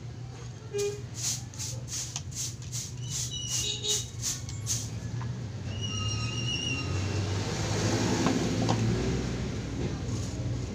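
Quick scratchy strokes, about three a second, that stop about five seconds in; then a brief high-pitched toot and a vehicle passing by, loudest about eight seconds in.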